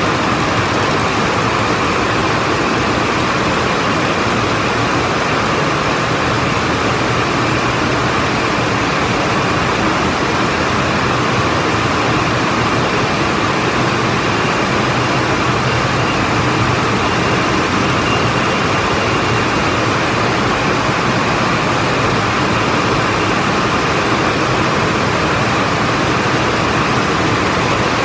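Many water-jet looms weaving at speed together: a loud, steady mechanical din in which the beats of the individual machines blend into one continuous noise.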